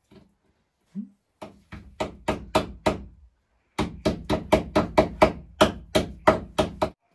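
Hammer driving nails into the wooden frame of a bamboo-slat wall: two runs of quick blows, about four a second, with a short pause between them.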